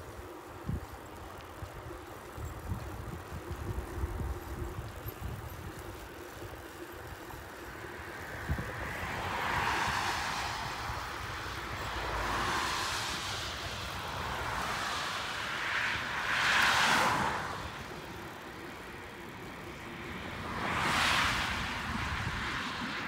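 Cars passing on a road alongside, each a swell of tyre and engine noise that rises and fades, the loudest about two-thirds of the way in and again near the end. Before them, a low, uneven rumble of wind and tyre noise from the moving bike.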